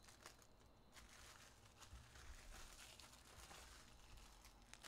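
Near silence, with faint rustling and a few light clicks from a stack of trading cards being handled and squared on the table.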